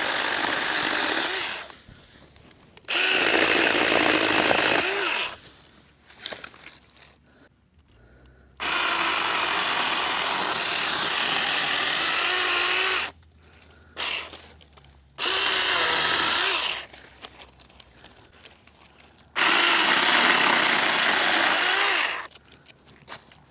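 Saker Mini 20-volt cordless electric chainsaw with a 4-inch bar cutting wood. It runs in about five bursts of one to four seconds each, with short pauses between them, its chain freshly re-tensioned and holding tension.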